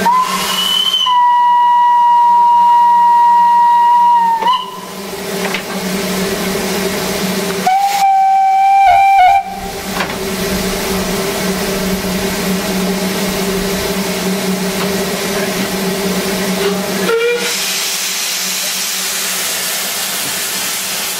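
Narrow-gauge steam locomotive whistles: a long blast of about four seconds, then a shorter, lower-pitched blast a few seconds later. Steam hisses steadily between and after them, growing louder near the end as the engine starts to move off with steam at its wheels.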